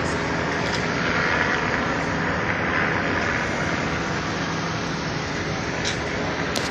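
Steady vehicle noise, a continuous engine-like rumble with a low hum and a slight swell a second or two in.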